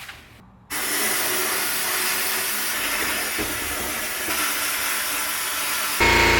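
Sandblaster blasting a gas cap: a loud, steady hiss of compressed air and abrasive that starts suddenly about a second in. Just before the end it cuts to a louder, steady machine hum with a low drone.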